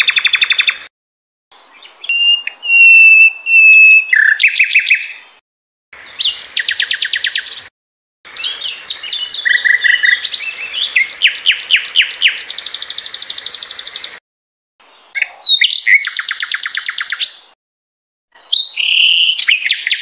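Sikatan londo songbird singing a string of varied phrases: rapid trills, fast repeated notes and one long steady whistle, each phrase cut off by a short pause. It is a masteran song loaded with imitations of cucak cungkok, cucak ijo and murai batu.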